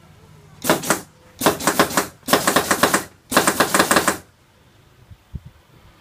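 Lever door handle rattling as a pneumatic cylinder bumps it rapidly up and down, in four bursts of fast clicking: a prop handle that jiggles by itself.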